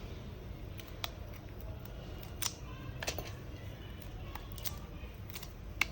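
A few short, sharp clicks and taps of small hard parts being handled and pressed into place on a smartphone as its inner cover is fitted, over a steady low hum.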